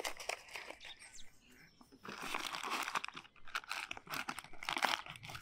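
Thick brown plastic MRE bag crinkling and rustling as it is pressed flat and folded over by hand, in uneven bursts of crackles, loudest from about two seconds in.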